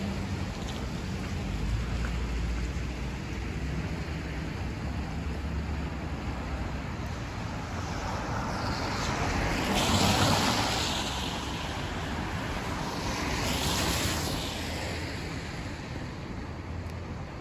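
Street traffic noise: two vehicles swish past on the wet road, the louder one about ten seconds in and another a few seconds later, each rising and fading over a steady background hiss.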